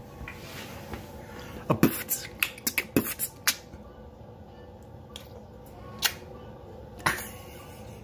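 Beatboxing mouth sounds: sharp pops and clicks, a quick run of them in the second and third seconds, then single pops spaced a second or more apart.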